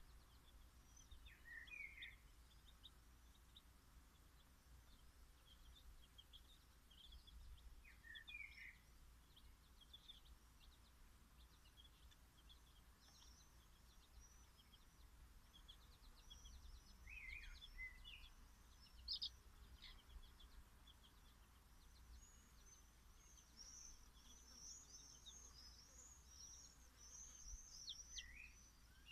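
Bantam chicks peeping faintly: many short, high chirps throughout, coming thickest near the end, with a few lower calls now and then.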